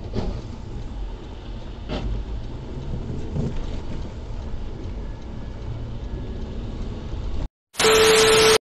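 Steady road and rain noise from inside a car on a wet highway, a low rumble with a couple of faint knocks. Near the end it cuts to a short, loud burst of TV-static hiss with a steady tone.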